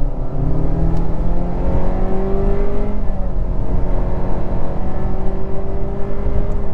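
2023 Honda CR-V's 1.5-litre turbocharged four-cylinder and CVT accelerating hard from a brake-torque launch, heard from inside the cabin. The engine note climbs steadily, drops back once about three seconds in as the CVT makes a simulated upshift in sport mode, then climbs again.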